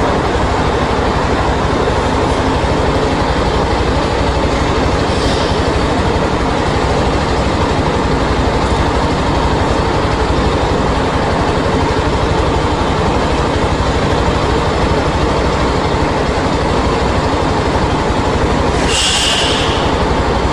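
Motorcycle engine idling steadily, with a short hiss about five seconds in and another just before the end.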